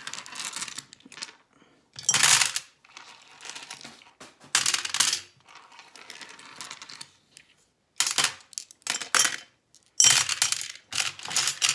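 Flat glass gems clinking and rattling against each other and the tray as they are scattered and pushed around by hand, in about five separate bursts of clicks.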